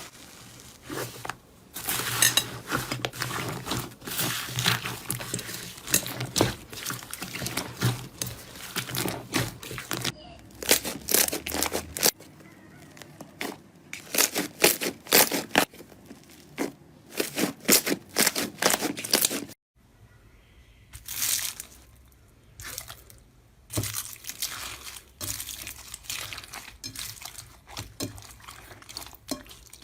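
Slime being squeezed, pressed and poked by hand: dense runs of crackling, popping clicks, broken by a few short lulls.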